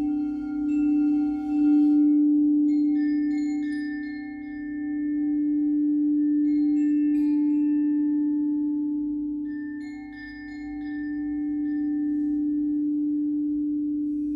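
Crystal singing bowls ringing together: a low bowl holds a steady tone throughout while higher bowls come in over it about three seconds in and again near ten seconds. The sound swells and fades in slow waves.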